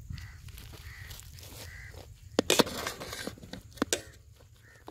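A metal serving utensil knocking and scraping against a large metal pot of biryani, with several sharp clinks from about halfway on. Crows caw faintly several times in the background during the first two seconds.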